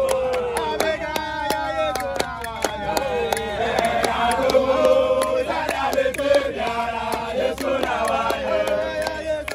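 A group of men singing a chant together, with steady handclapping through it.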